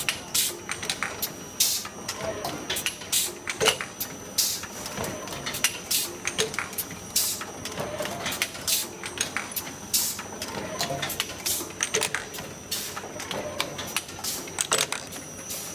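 Automatic sugar cone baking machine running, its mechanism giving off a busy, irregular clatter of sharp clicks and clacks over a steady high whine.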